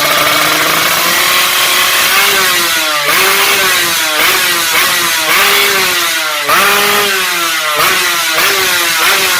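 Modified Yamaha RX King two-stroke single-cylinder engine with a roadrace exhaust, revved repeatedly in short blips, its pitch climbing and dropping back about once or twice a second.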